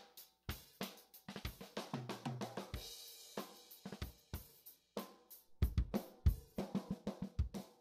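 Drum-kit music played through a Biamp 1682 mixer channel strip's tone-control section, its tone changing as the EQ knobs are turned. The sound is thin with the controls cut around the middle, and the kick drum's low end comes back strongly about five and a half seconds in.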